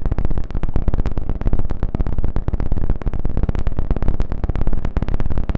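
A loud, rapid clatter of sharp clicks or rattles, many per second, that starts and stops abruptly.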